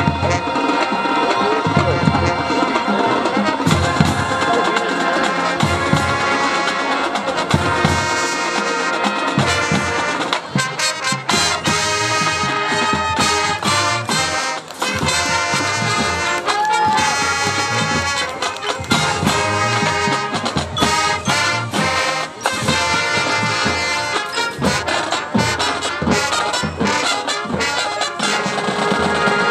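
Marching band playing its field show, the brass section loudest, trumpets and trombones over drums. From about ten seconds in, the playing breaks into many short, quick hits.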